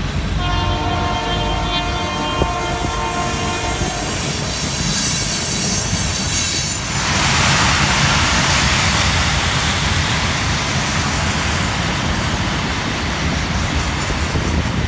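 Freight cars of a rail train, loaded with long steel rails, rolling past with a steady rumble and clatter. For the first four seconds a steady pitched tone rides over the rolling noise, and a higher squeal follows briefly. After that the rolling noise grows louder and broader.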